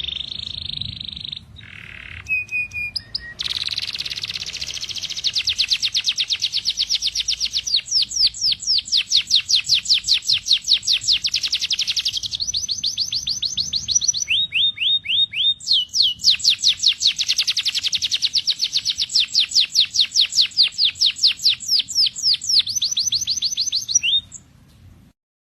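Canary singing a long song of fast trills, each a rapid run of repeated short notes, switching from one trill to another every few seconds. The song stops about a second before the end.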